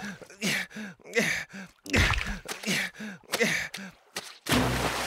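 A man's voice grunting and groaning in short strained bursts, about three a second, each falling in pitch, as he struggles to haul himself up out of a swimming pool. A sudden rush of noise comes near the end.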